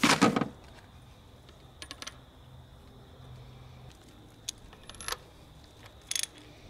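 Metal clinks of spark plugs and hand tools being handled while new spark plugs are fitted to an outboard motor. A loud clatter comes at the start, followed by several light clicks and taps, a few with a brief metallic ring.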